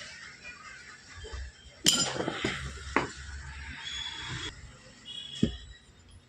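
Metal clinking and clattering: a sharp metallic clank about two seconds in that rings briefly, then lighter knocks about a second and three and a half seconds later.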